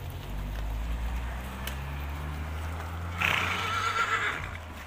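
A horse neighs loudly about three seconds in, a high call lasting just over a second, over a low steady rumble.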